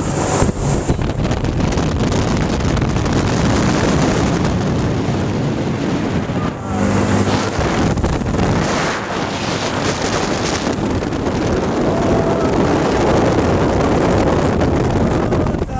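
Steady rush of wind buffeting the microphone of a rider aboard a Mondial Turbine thrill ride in motion, mixed with the ride's running noise.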